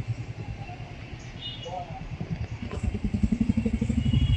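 A motor vehicle's engine running nearby, growing louder about halfway through as it approaches.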